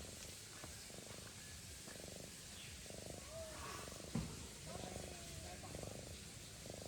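Domestic cat purring close by, in regular pulses about once a second. A sharp knock about four seconds in.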